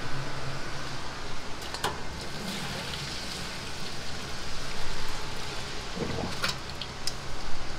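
Boiled ramen noodles draining in a mesh strainer, the water pattering down like rain, with a couple of sharp metal clinks over a steady low hum.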